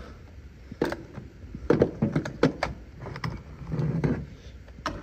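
A string of sharp knocks and clunks, about seven in all, of tools and wooden joists being handled as someone shifts about in an attic, with a short muffled low sound about four seconds in.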